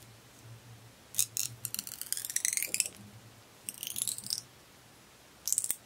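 Dried barley straw crackling as a wooden skewer is pushed along it, splitting the stem open and pressing it flat. The crackling comes in three bursts of fast, crisp snaps: a long one, a shorter one, and a brief one near the end.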